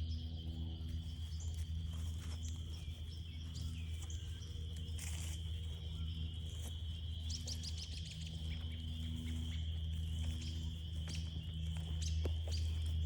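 Evening frog chorus: many frogs calling together as one steady high-pitched din, with a lower pulsing hum underneath and scattered footstep clicks on the trail.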